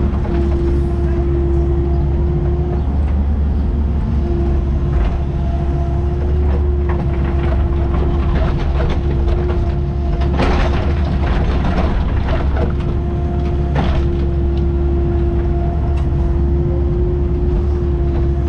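Excavator's diesel engine running steadily, heard from inside the cab, with a steady hydraulic whine that drops out briefly a few seconds in. About two thirds of the way through come a few short knocks and scrapes as the bucket works the soil and stones.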